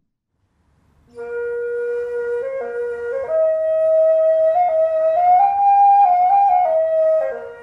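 Daegeum, the Korean transverse bamboo flute, playing a slow solo line of long held notes. It comes in about a second in, climbs in steps, and falls back to its opening note near the end.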